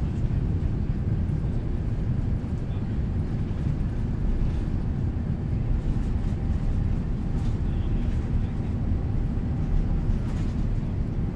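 Airbus A350-900 cabin noise during the takeoff climb: the Rolls-Royce Trent XWB engines and airflow give a steady, even rumble heard from an economy seat.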